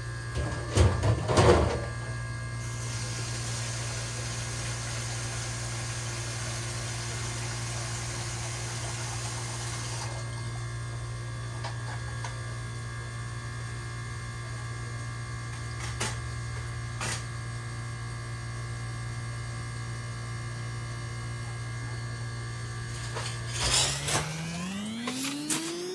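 A steady electrical hum from a running machine, with a few knocks about a second in and single clicks later. Near the end the hum cuts off and a motor winds up, its whine rising steadily in pitch.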